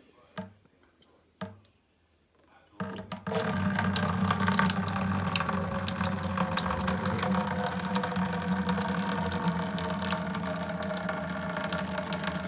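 A few light clicks, then about three seconds in water starts gushing steadily out of the boiler's opened domestic hot water piping where the old mixing valve has been taken off.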